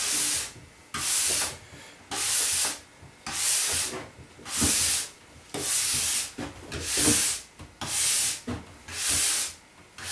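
Stainless steel wax brush scrubbing a snowboard's polyethylene base in even back-and-forth strokes, about one a second, each a hissing scratch. The long stiff bristles break up the surface and pull old wax out of the base before hot waxing.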